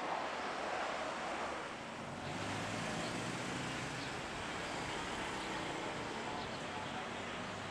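Jet airliner engine noise. For about two seconds an Airbus A320's engines run at takeoff power during its runway roll. Then, after a change about two seconds in, a Boeing 777-300ER's GE90 engines run at approach power: a steady rumble with a low hum underneath.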